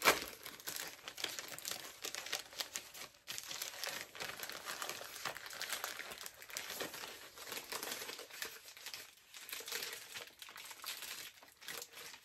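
Plastic poly mailer crinkling and crackling as it is pulled and torn open by hand, with a sharp crackle right at the beginning.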